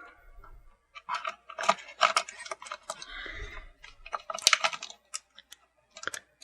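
Hard plastic toy parts clicking, knocking and scraping as an action figure is fitted onto a Masters of the Universe Stridor toy horse. There is a run of sharp clicks, a short scrape near the middle, then a few more clicks.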